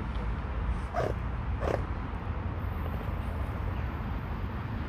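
Two short barks, about a second in and again about 0.7 s later, over a steady low rumble.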